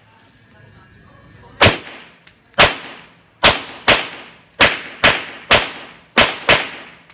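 STI pistol in .40 S&W, fitted with a DPM triple recoil spring and an ISMI recoil spring, firing nine shots: the first about a second and a half in, then at an uneven pace, several in quick pairs about half a second apart, each crack ringing off briefly.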